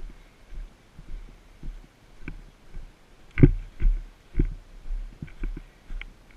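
Footsteps and body movement thudding through a body-worn action camera: dull low thumps about twice a second, with light clicks of gear. The heaviest thumps come about halfway through.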